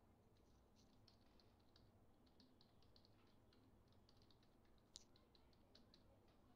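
Faint computer keyboard typing: a quick run of key clicks as a login name and password are entered, with one sharper click about five seconds in.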